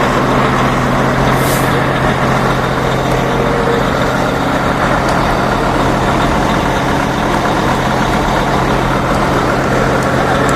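Heavy trucks' diesel engines running steadily at idle, with a steady low hum, and a short hiss of compressed air from an air brake about one and a half seconds in.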